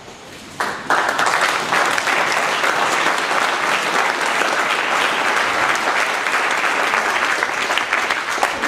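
Audience applauding, starting suddenly under a second in and going on steadily.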